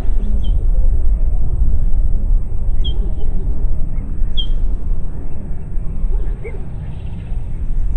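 Wind buffeting the microphone in a steady low rumble, with a few short high bird chirps about half a second, three seconds and four and a half seconds in.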